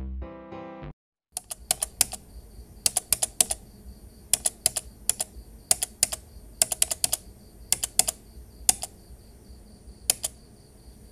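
A short stretch of music ends about a second in. After a brief gap, a computer-keyboard typing sound effect follows: irregular sharp key clicks, some single and some in quick runs, over a faint steady high tone.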